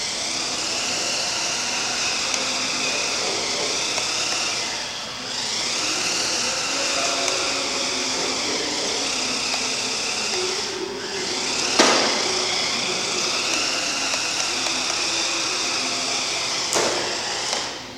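Small electric motor of a radio-controlled toy pickup truck whining, its pitch rising and falling with the throttle and dropping out briefly twice. A sharp knock comes about twelve seconds in and another near the end.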